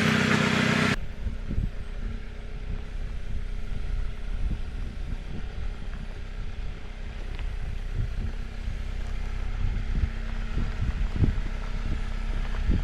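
A vehicle engine running at low speed with a steady low hum, wind buffeting the microphone and scattered low knocks and bumps. The sound changes abruptly about a second in.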